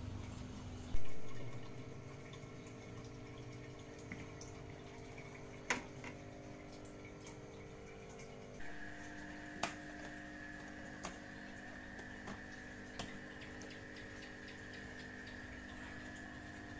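Quiet room background of a steady hum with faint water trickling from an aquarium. A sharp knock comes about a second in, followed by a few scattered light clicks.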